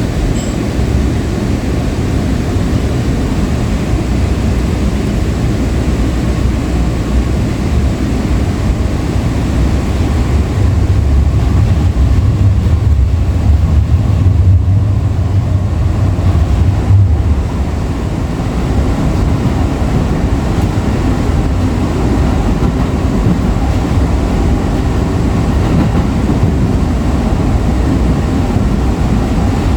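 Breda LRV3 light rail car running on the rails, heard from on board as a steady low rumble. The rumble grows louder for several seconds in the middle, then eases off slightly.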